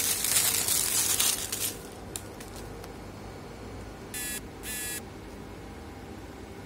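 Clear plastic wrap crinkling as it is pulled off a tablet's cardboard box, for about the first two seconds. About four seconds in come two short, high, buzzy electronic beeps about half a second apart.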